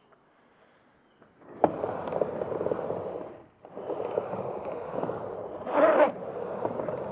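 Skateboard dropping into a ramp with a sharp clack, then its wheels rolling steadily across the ramp surface. The rolling dips briefly about three and a half seconds in as the board rides up the wall and comes back fakie. About six seconds in there is a louder scrape as the wheels slide sideways in a power slide.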